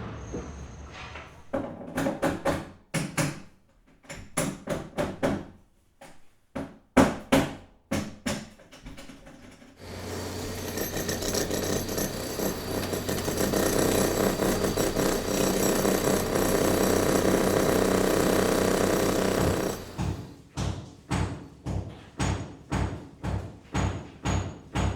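Irregular sharp knocks or strikes, then a steady machine-like noise running for about ten seconds, then regular knocks about two a second.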